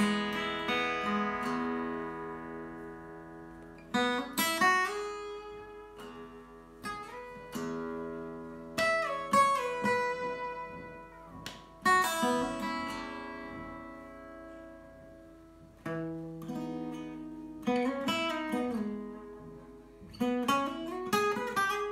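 Solo Takamine acoustic guitar playing a slow blues. Ringing chords are struck about every three to four seconds and left to fade, with short runs of picked single notes and a few notes sliding up in pitch between them.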